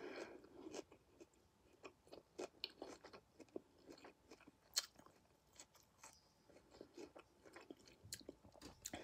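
Faint chewing of a mouthful of barbecue chicken salad, with soft, irregular crunches and mouth clicks; the sharpest click comes about five seconds in.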